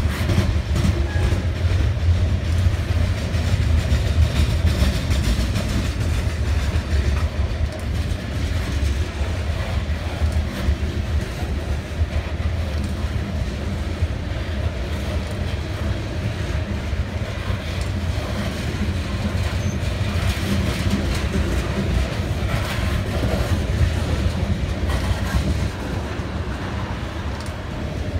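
BNSF coal train's cars rolling past in a steady low rumble, with the wheels clicking over rail joints.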